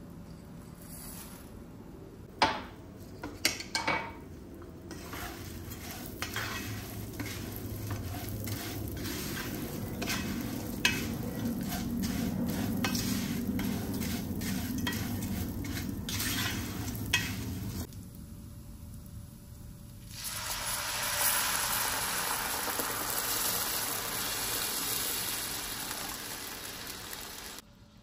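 Food frying in hot oil in a pan while a utensil stirs it: a few sharp clinks at first, then steady stirring and scraping with light taps against the pan. After a sudden cut, a louder, even sizzle.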